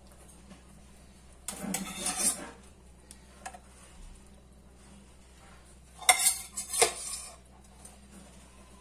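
Spoon scraping and clinking against cookware while food is dished out: a short scraping clatter about a second and a half in, then two sharp clinks about six seconds in.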